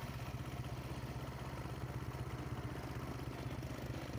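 An engine idling steadily: a fast, even low throb that holds the same pace and level throughout.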